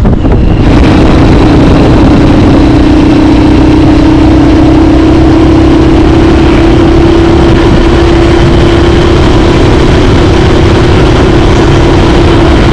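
A road vehicle travelling at a steady speed. A constant engine drone runs over loud rumbling road and wind noise.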